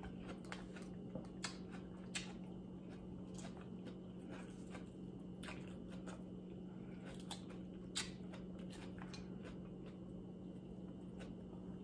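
Quiet eating sounds: soft chewing and mouth noises with scattered light clicks of a metal fork picking salad from a glass bowl, the sharpest click about eight seconds in. A steady low hum runs underneath.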